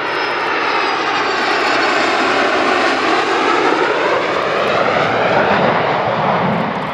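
Panavia Tornado jet flying past with loud jet engine noise, the sound sweeping in pitch as it passes; it builds to its loudest about five seconds in and eases off near the end.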